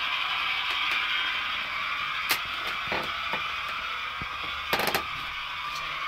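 Hornby Class 121 DMU model with a Howes sound chip running, its recorded diesel railcar sound coming thinly through the small floor speaker. Sharp clicks cut across it, one a couple of seconds in and a quick rattle of several just before the end.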